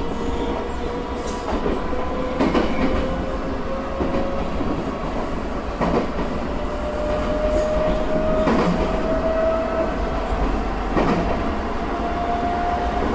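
Tokyo Metro 8000 series armature-chopper train running, heard from inside the car: a low rumble under a whine that rises slowly in pitch, with a few clacks from the wheels over rail joints.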